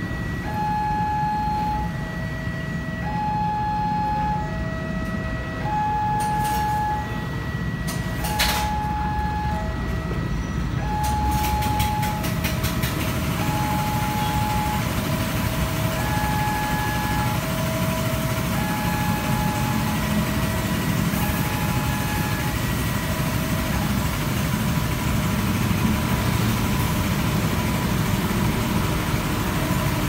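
Railway level crossing warning signal sounding a slow alternating high-low two-tone chime, repeating about every two and a half seconds, then fading out about three-quarters of the way through. Underneath is steady traffic from cars and motorcycles, with a run of sharp clicks and rattles around a third of the way in.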